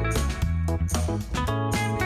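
Background music: guitar over bass and a steady drum beat.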